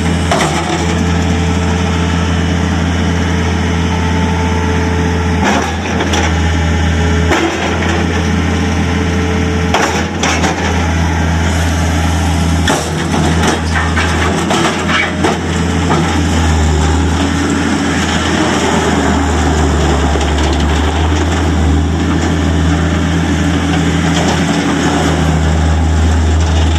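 John Deere 325 skid steer's 76 hp diesel engine running steadily, with scattered sharp clanks and knocks of the machine's metal parts.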